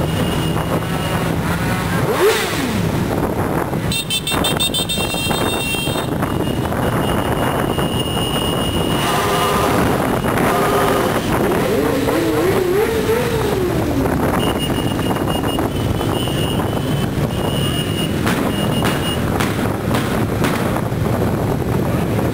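A group of motorcycles riding together in close formation, engines running and revving, heard from one of the bikes among them. Short high steady tones sound now and then over the engines.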